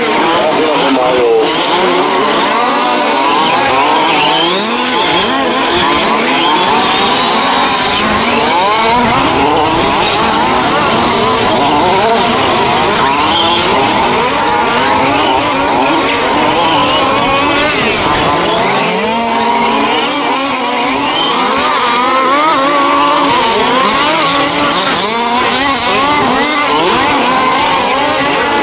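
Several 1:5-scale petrol RC race trucks with small two-stroke engines, revving up and down at once as they race; the overlapping engine notes rise and fall continuously.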